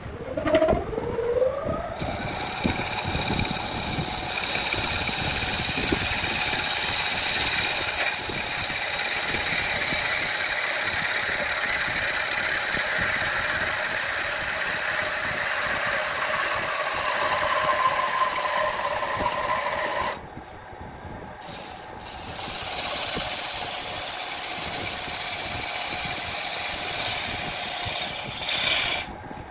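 Wood lathe spinning a wood blank while a long turning gouge cuts it: a steady whine with a rasping cutting noise. The whine rises in pitch at first as the lathe comes up to speed, and the cut sets in about two seconds in. It stops for a couple of seconds about two-thirds of the way through, then resumes and stops just before the end.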